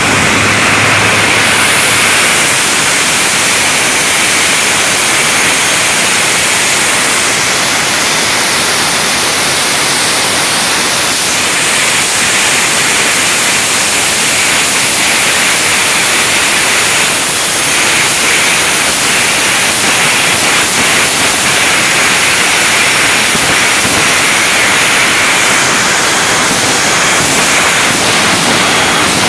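The three jet engines of the Shockwave jet semi truck running at high power, a loud, steady rushing noise with no let-up.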